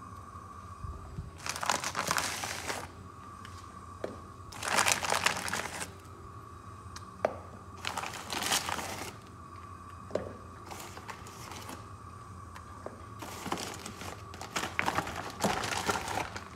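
Plastic bag crinkling as it is handled, in about five bursts a few seconds apart. A faint steady whine runs underneath.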